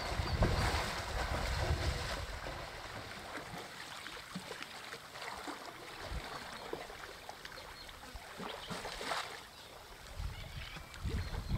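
Wind buffeting the microphone in gusts over a faint steady outdoor hiss, strongest near the start and again near the end.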